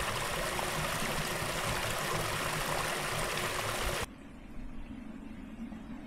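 Small woodland brook splashing over a low mossy step: a steady rush of water that cuts off suddenly about four seconds in.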